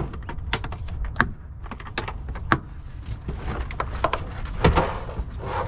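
Hard plastic clicks and knocks of a Milwaukee Packout organizer as it is closed, latched and lifted, with a couple of heavier knocks near the end.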